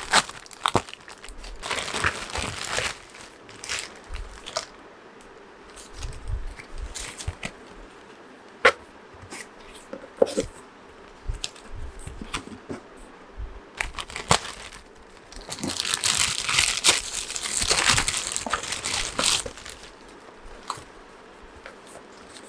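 Plastic courier mailer bag crinkling and tearing as it is pulled open by hand, with scattered clicks and crackles of packaging being handled. The longest and loudest bout of crinkling comes about two thirds of the way in.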